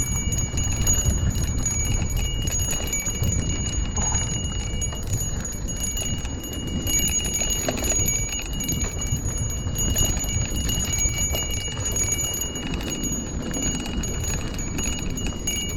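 Riding an electric rental scooter: wind and road rumble on the microphone, with a steady high-pitched whine held throughout.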